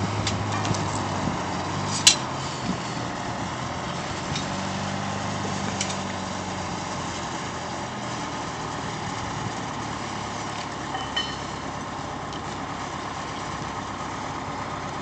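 A loader's engine running steadily, with one sharp knock about two seconds in and a few lighter knocks after.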